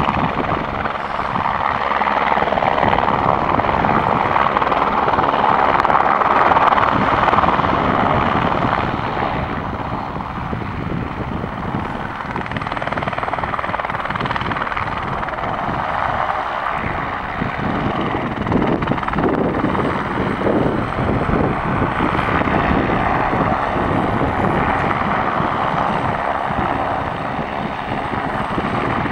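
Helicopter coming in to land on snow and then running on the ground with its rotors turning at full speed; a continuous, loud turbine-and-rotor noise, loudest in the first several seconds as it comes in.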